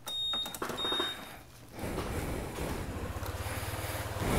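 Honda ADV150 scooter's single-cylinder engine idling, a low steady rumble that comes in about two seconds in.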